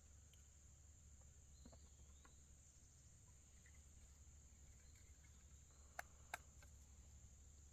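Near silence with a faint steady high-pitched insect drone, broken about six seconds in by two sharp clicks a third of a second apart.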